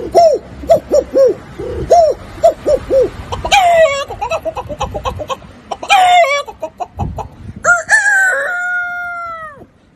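A man imitating chickens with his voice: a quick run of clucks, then crow-like calls, the last one held long and falling away near the end.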